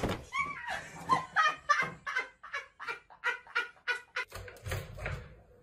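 A person laughing in a long run of short bursts, about three a second, with a low rumble of handling noise near the end.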